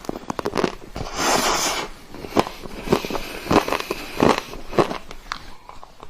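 Close-miked mouth sounds of eating ice cream: a run of wet clicks and smacks, with a longer noisy stretch about a second in.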